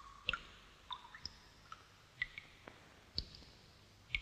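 Sparse water drips and small splashes during washing: several separate short clicks at irregular intervals, some with a brief ringing plink.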